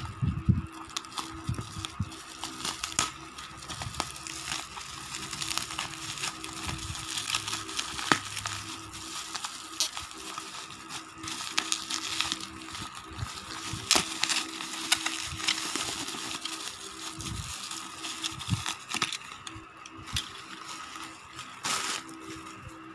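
Bubble wrap and plastic wrapping crinkling and crackling with many small sharp clicks as it is cut with scissors and pulled off a toy train engine and truck. The crinkling dies down near the end.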